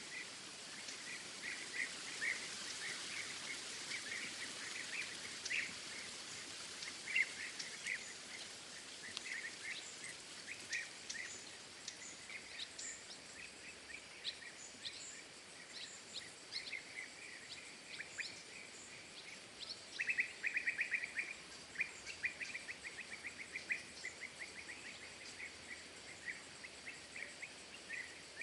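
Small birds chirping and trilling again and again over a steady background hiss, with a quick run of rapid trilled notes about two-thirds of the way through.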